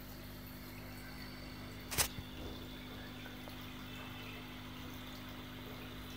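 Steady hum of an aquarium pump running, with one sharp click about two seconds in.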